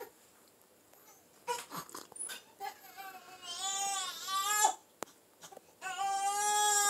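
Infant whinging on its back: short fussy grunts, then a wavering whine in the middle, then a long steady cry starting about six seconds in.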